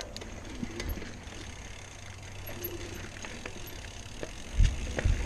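XC hardtail mountain bike rolling down a dirt singletrack: a low rumble of tyres and wind on the mount, with scattered clicks and rattles from the bike. A heavy thump about four and a half seconds in as the bike takes a bump.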